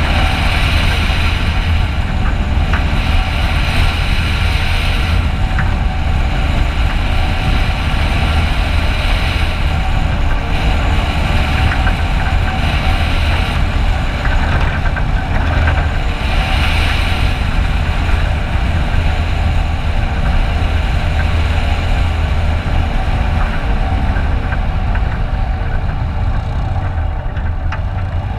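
Toyota Land Cruiser LJ70's diesel engine running steadily as it drives slowly along a rough track, a continuous low rumble. A higher hiss swells and fades several times over it.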